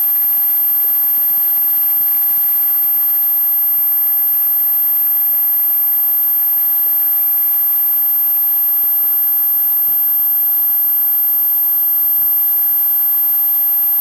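Steady hiss with a thin steady whine under it: the recording's own electronic noise, unchanged whether the camera points at the stream or at the trees.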